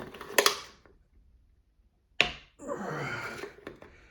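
Leatherman Arc multitool's can opener working at the rim of an aluminium soda can: two sharp metal clicks, then after a pause a sharp snap and about a second of rasping scrape as the blade drags along the lid.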